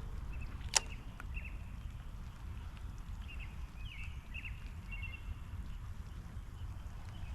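Steady low wind rumble on the microphone, with one sharp click about a second in and faint, scattered bird chirps over the first five seconds.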